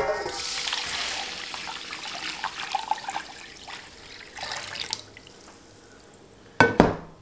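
Steeped herbal tea poured from a stainless steel pot through a mesh strainer into a stainless steel bowl, splashing steadily for about five seconds and then tapering off. Near the end, two sharp metallic clanks as the emptied pot is set down.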